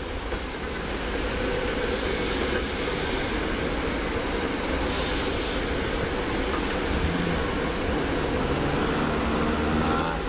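SEPTA Silverliner IV electric multiple-unit train rolling past on snow-covered track: a steady wheel-on-rail rumble and clatter, with a faint wheel squeal near the end.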